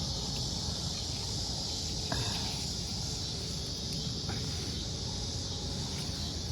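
Steady high-pitched chorus of evening insects, with a low rumble of wind or handling noise beneath it and a soft knock about two seconds in.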